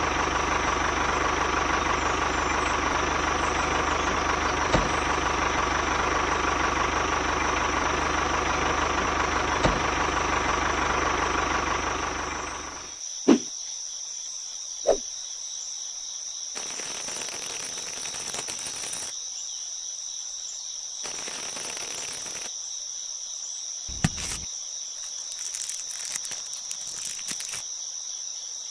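A toy model tractor's steady engine-like drone as it drives, with a few sharp clicks. It fades out about twelve seconds in. What remains is a quieter, steady high insect trill with a few soft knocks.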